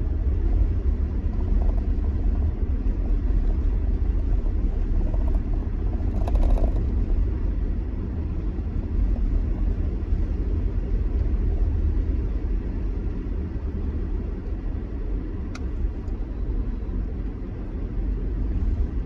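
Car driving on snowy roads: a steady low rumble of engine and road noise, with a brief louder swish about six seconds in and a single click near the end.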